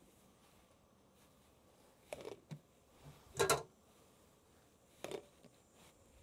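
Lids being set down onto two glass mixing bowls: three short, soft knocks about two, three and a half and five seconds in, the middle one the loudest.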